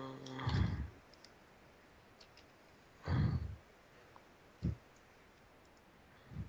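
A drawn-out 'um', then a few short, low puffs or thuds on the microphone, the loudest about three seconds in, with faint clicks as someone works at a computer.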